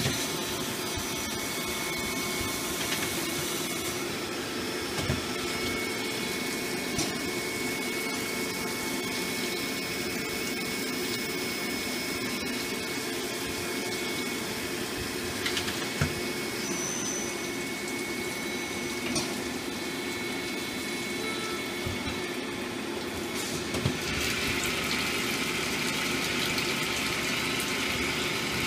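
Nakamura-Tome TW-10MM CNC lathe running a machining cycle: a steady machine hum and whine mixed with coolant splashing inside the enclosure, with a few sharp knocks. Late on the coolant splashing grows louder and hissier.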